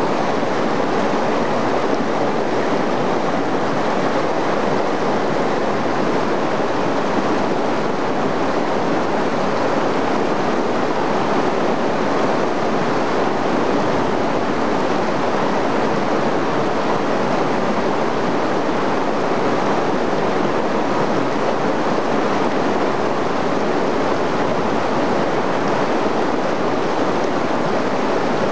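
Whitewater rapids of a mountain river rushing over and around boulders, a steady, unbroken roar of water.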